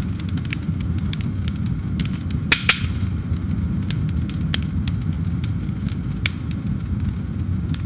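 Campfire crackling: irregular sharp pops and snaps over a steady low rumble, with two louder pops about two and a half seconds in.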